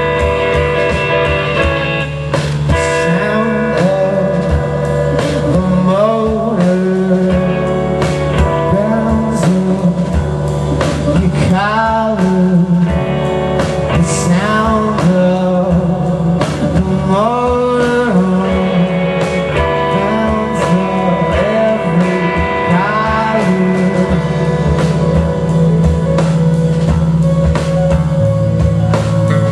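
Live blues-rock band playing: a singer's bending melody over guitar, a steady bass note and drum hits.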